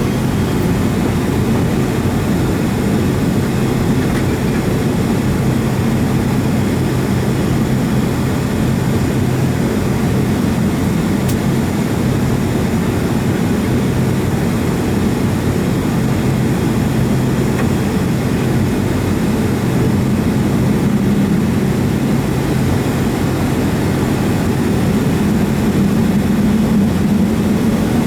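Boeing 757 jet engines at taxi idle, heard inside the passenger cabin as a steady low hum with a couple of steady low tones, swelling slightly near the end.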